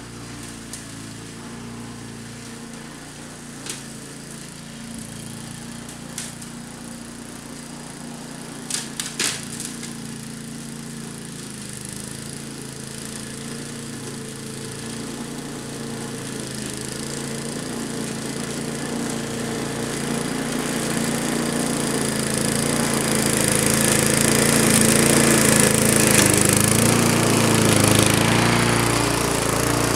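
Walk-behind lawn mower engine running steadily while mowing tall ragweed, growing louder as the mower comes closer. There are a few sharp clicks in the first ten seconds.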